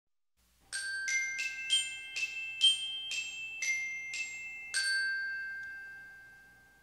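Logo jingle of bright, bell-like struck notes, like a glockenspiel: about ten notes in a quick run starting just under a second in, the last one ringing on and fading away.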